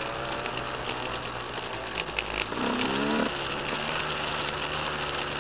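Dirt bike engine running at low speed, with a brief rev that rises in pitch about three seconds in.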